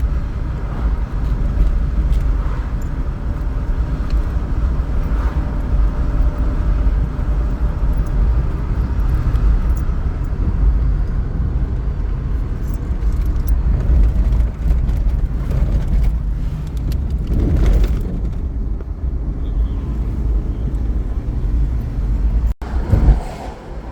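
A moving car with a steady low rumble of engine and road noise. The sound cuts out briefly near the end.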